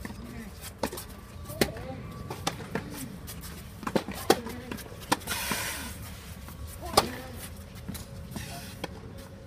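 Tennis rally: sharp pops of racket strings striking the ball at irregular intervals, the loudest about four and seven seconds in, with fainter hits from play on nearby courts. Short voice sounds from the players come in between the strikes.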